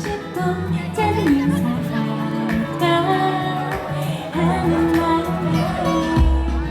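Pop song performed live: a woman singing over a backing track with a steady beat.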